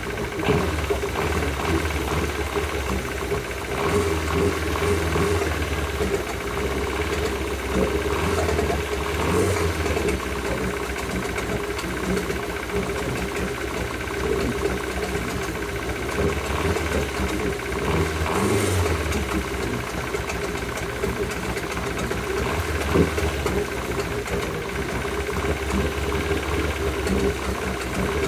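2000 Yamaha F100 four-stroke outboard motor running steadily with a knock in it, which the owner asks may be rod knock or just how this motor normally sounds.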